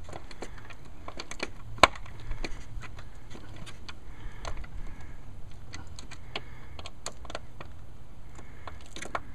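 Scattered light clicks and taps from a wooden expanding trellis being handled and held against a house wall, with one sharper knock about two seconds in.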